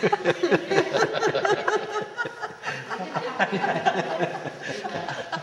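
Several people laughing together, voices overlapping in a long burst of loud laughter.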